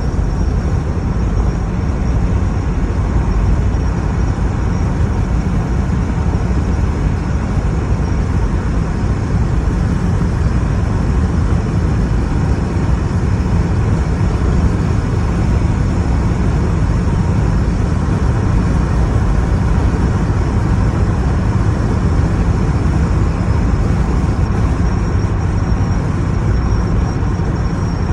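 Steady rush of driving airstream buffeting the microphone, with vehicle engine and road noise underneath, from a moving vehicle.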